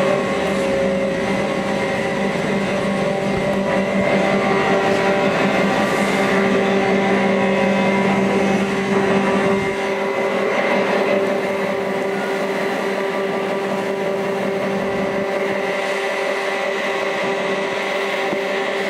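Plastic-processing machinery running steadily, including a drum mixer churning plastic granules, with a constant hum of several steady tones. The deep low rumble drops away about halfway through.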